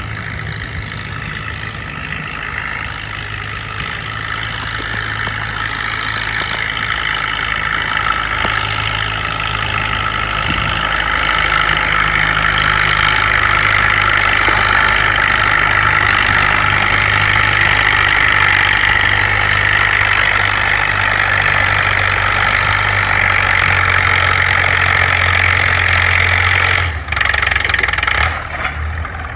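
Antique farm tractor engine running under load while pulling a weight-transfer sled, growing louder over the first dozen seconds and holding steady, then changing abruptly near the end.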